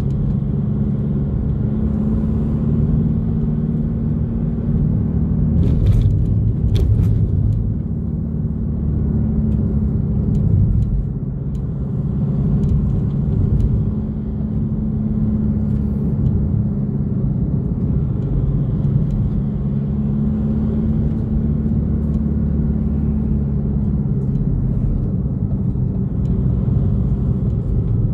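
A road vehicle driving along, heard as a steady low engine hum with road rumble, its engine note swelling and easing slowly. A couple of sharp clicks come about six and seven seconds in.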